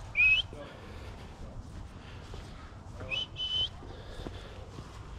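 A person whistling twice: a short rising whistle right at the start, then a two-part whistle about three seconds in.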